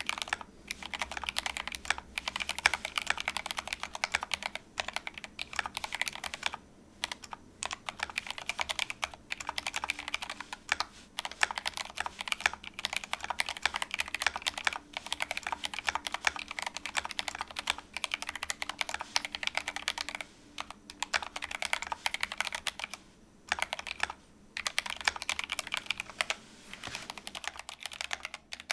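Continuous fast typing on a GMMK Pro mechanical keyboard with Gateron Black linear switches and PBT keycaps: a dense run of keystrokes broken by a few short pauses.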